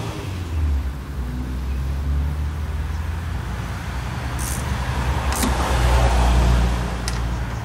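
A steady low rumble that swells about six seconds in, with a few sharp metallic clicks of a ratchet wrench tightening bolts on top of the engine.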